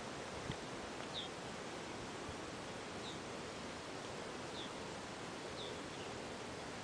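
Quiet outdoor ambience: a steady hiss with a bird giving short, falling chirps every second or two.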